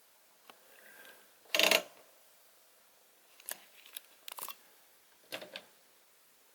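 Handling sounds at a front-loading washing machine: one short, sharp clack about a second and a half in, then a few lighter clicks and knocks.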